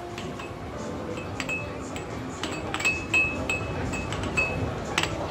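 Air hockey puck and mallets clacking hard and irregularly against the table. Short high electronic beeps and chimes come from arcade game machines around it.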